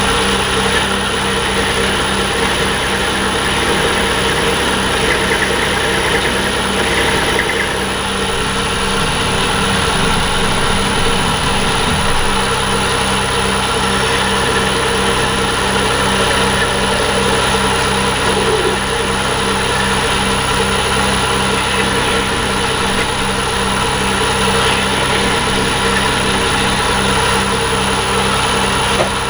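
Emco V10-P metal lathe running steadily, a continuous hum and whine from its motor and drive.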